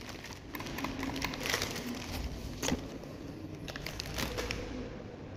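Quiet rustling and crinkling with a few light clicks scattered through it.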